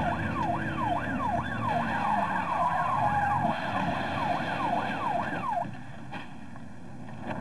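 Police car siren wailing up and down rapidly, about twice a second, over vehicle engine noise; the siren cuts off about five and a half seconds in.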